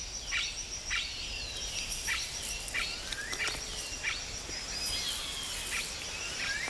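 Rainforest ambience: a steady high-pitched insect drone, with short whistled calls that sweep downward in pitch, repeated one or two times a second.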